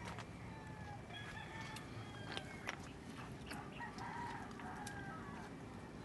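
Faint rooster crowing, with scattered footsteps on stony ground.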